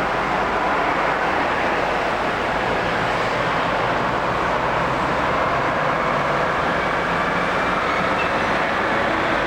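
A vehicle running steadily, with a low engine hum under an even noise of running, and a faint thin whine in the later seconds.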